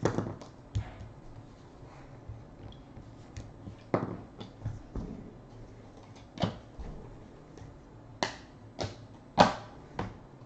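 Trading cards and a foil card pack handled on a tabletop: a scattered series of sharp taps, clicks and crinkles as the pack is opened and cards are set down on stacks, the loudest about nine and a half seconds in.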